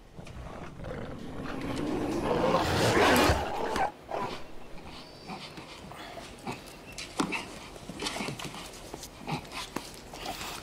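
A dog growling, swelling louder over about three seconds and cutting off suddenly about four seconds in. After it come scattered short clicks and taps.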